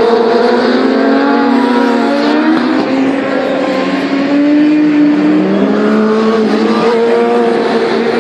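Several 1000cc inline-four superbike engines running at racing revs, their pitches overlapping and rising and falling as the bikes accelerate, shift and pass.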